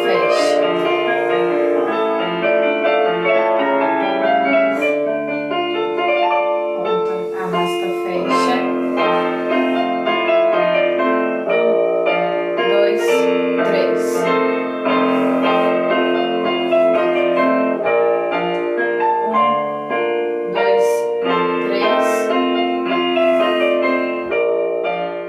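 Solo piano music playing steadily, a ballet-class accompaniment for a barre exercise.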